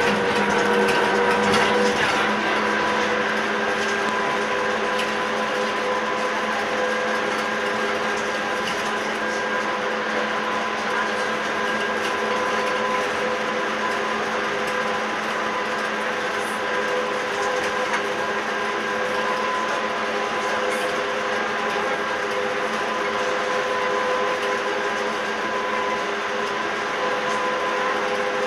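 Tateyama Tunnel Trolleybus driving through the tunnel, heard inside the cab: the steady hum of its electric drive with several held tones, over tyre and tunnel noise.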